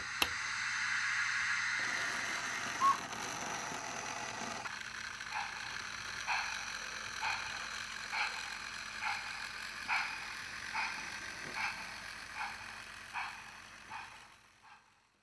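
Model railway sound chip playing synthesized steam-locomotive effects for a J94 0-6-0 tank shunter: a steam hiss for the first couple of seconds and a brief tone about three seconds in, then slow steam chuffs about once a second that quicken slightly and fade out near the end.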